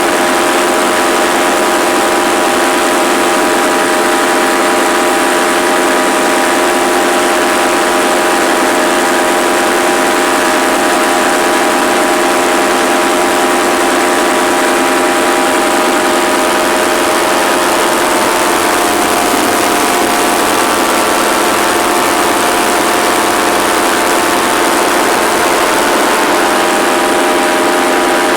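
Paramotor engine and propeller running at a steady throttle, a constant pitched drone that holds the same note throughout.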